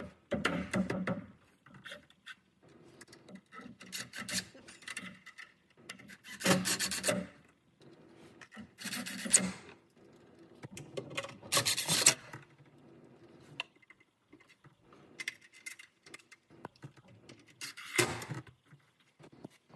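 Cordless drill driving screws into a panel under a truck dashboard, in about five short runs of a second or less each. Quieter rubbing and handling of the panel come between the runs.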